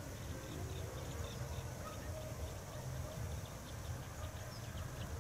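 A flying insect buzzing with a faint steady hum, over a constant low outdoor rumble, with many short high chirps of small birds scattered through it.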